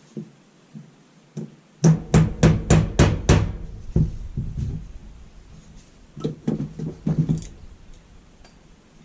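A restored hammer striking a hard surface: a quick run of about six evenly spaced blows, then a few lighter knocks after a short pause.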